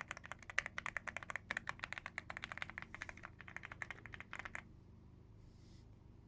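Typing on an Aula F99 Pro mechanical keyboard: a fast, steady run of keystroke clacks that stops about four and a half seconds in.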